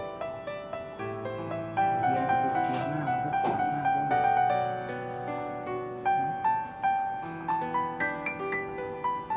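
Background piano music: a slow melody over held low notes, moving into quicker repeated notes near the end.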